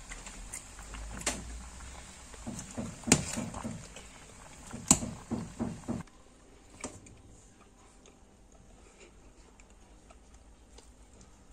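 A metal ladle clinking and knocking against a steel saucepan of simmering tea, a run of sharp clinks with the loudest about a second, three and five seconds in. After about six seconds only faint ticks remain.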